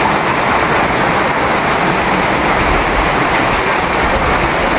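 Heavy rain pouring down, a loud, steady hiss with no let-up.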